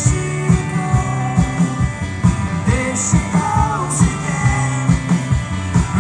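Live rock band playing: drum kit keeping a steady beat, with bass and electric guitar, and cymbals struck a few times.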